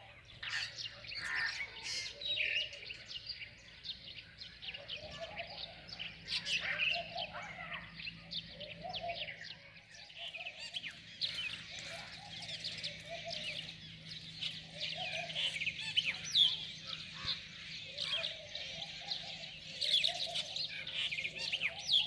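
A dense chorus of small birds chirping and twittering. From about five seconds in, a softer, lower call repeats every second or two underneath.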